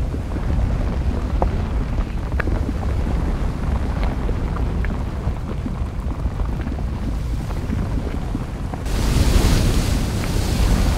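Volcanic eruption: a steady low rumble with occasional faint crackles and pops. About nine seconds in it gives way to a louder rushing, hissing sound as churning, spattering lava takes over.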